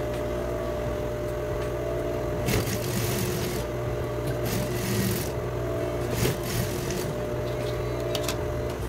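Overlock machine (serger) running steadily as it finishes fabric edges, with a few short bursts of hiss. It stops near the end.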